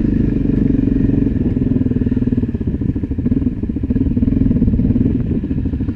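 Off-road motorcycle engine running at low speed, heard up close on the rider's own bike. The throttle eases off and picks up again about halfway through and near the end.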